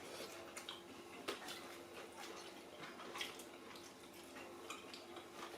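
Faint eating sounds: scattered soft clicks and taps of food and dishes, over a faint steady hum.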